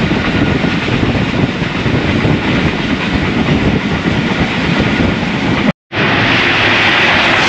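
Passenger train coach running at speed: a steady rumble and clatter of wheels on the rails. About six seconds in the sound cuts out for a moment, then comes back as a brighter, louder rush.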